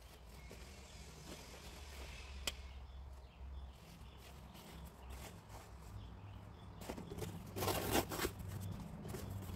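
Outdoor ambience with a low rumble and a few faint clicks, then a brief loud rustle about eight seconds in.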